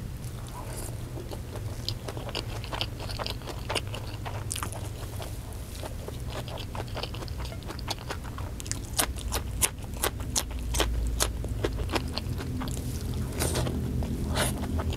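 Close-miked eating: chewing a mouthful of rice and raw long beans with many short crisp crunches, which come thicker in the second half, over a low steady hum.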